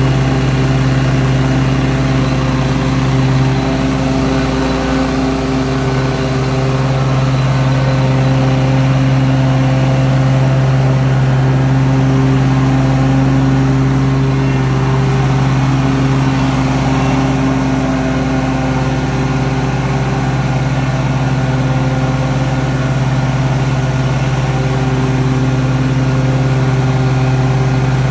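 Toro Grandstand 48-inch stand-on mower's engine running steadily at mowing speed while it cuts grass.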